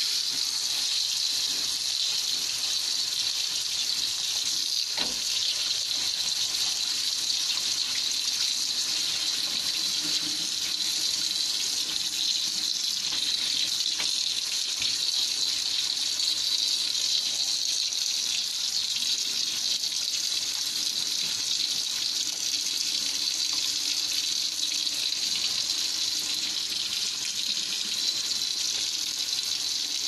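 Tap water running steadily into a sink, with hands rinsing under the stream.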